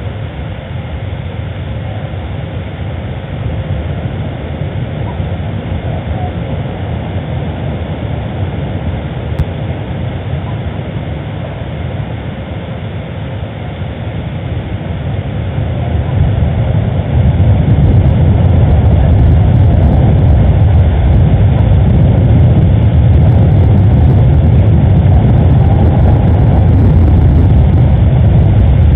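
Loud, steady low rumble that grows louder about seventeen seconds in.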